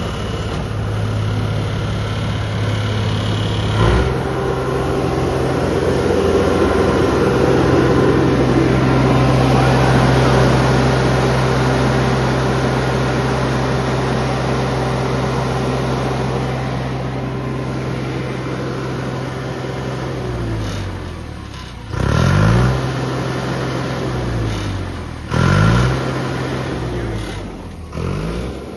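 John Deere 250 skid steer's diesel engine running under the operator's control. About four seconds in it is throttled up and held at a steady high speed. Around twenty seconds in it drops back, then gives three short surges in engine speed near the end.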